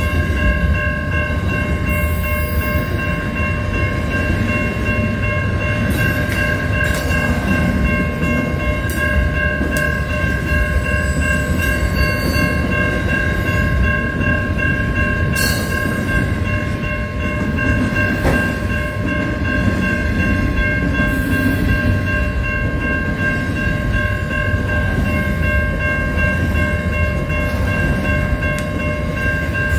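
Freight train of container wagons rolling past, a continuous rumble of wheels on rails, with a steady ringing of several high tones over it throughout.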